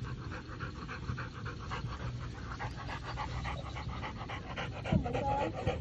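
Dog panting rapidly, winded from a tug-of-war that has gone on for about nine minutes. A short voice-like sound rises and falls about five seconds in.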